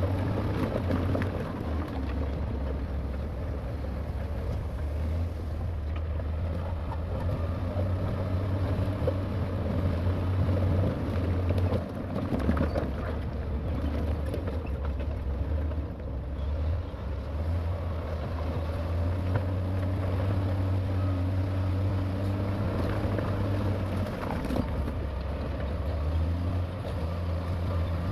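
Heavy diesel earthmoving machinery running: a steady low engine drone, with a few short bursts of clatter about twelve seconds in.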